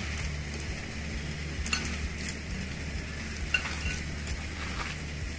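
A gloved hand mixing and kneading wet minced chicken patty mixture in a glass bowl, a soft squishing with a few light clicks.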